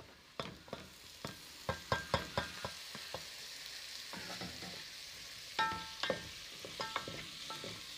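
Chopped tomatoes sizzling as they fry with meat in a metal cooking pot, with a utensil stirring and knocking against the pot. Some of the knocks ring briefly off the metal.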